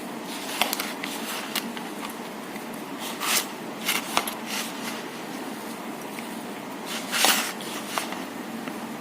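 Chopped banana flower being mixed with spices and flour in a bowl: scattered clicks and rustling swishes, the loudest a little past the middle and near the end, over a steady background hum.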